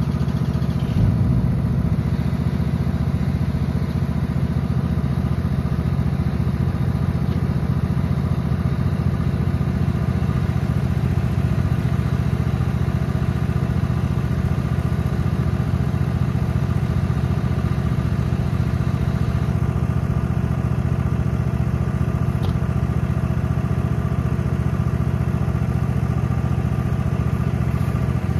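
Billy Goat trailer-mounted leaf loader's engine and fan running steadily with the hose not yet picking up leaves, a constant even drone. A brief knock sounds about a second in.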